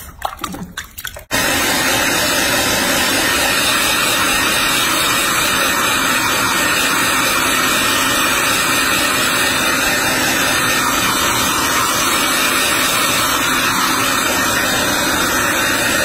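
Hair dryer blowing steadily. It comes in suddenly about a second in, after brief splashing of bath water.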